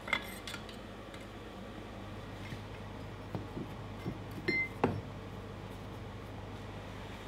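Steel clinks: one sharp clink of steel on the anvil just after the start, then several knocks and clinks of forged steel punches against each other in a wall rack about four and a half seconds in, as one is drawn out, the last the loudest. A steady low hum runs underneath.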